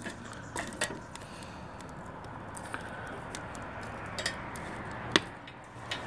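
A steel poker rod knocking and clinking a few times against the burning wood and the iron firebox of a small wood-fired steam boiler, the sharpest knock about five seconds in, over a steady rushing noise.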